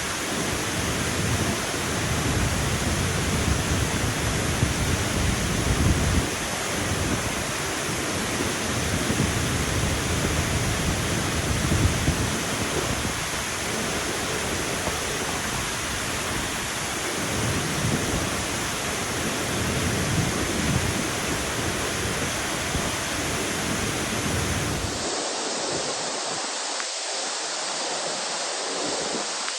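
Waterfall's rushing water as a loud, steady roar with an uneven low rumble. About 25 s in the sound changes abruptly to a thinner rush of water without the rumble.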